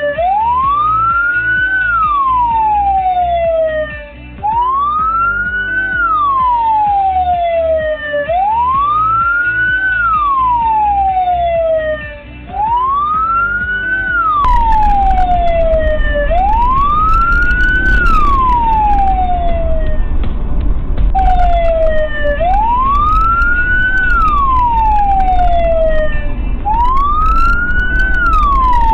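Emergency vehicle siren wailing: each cycle rises quickly and then falls slowly, repeating about every four seconds. From about halfway, a louder low rumble of road and engine noise runs beneath it.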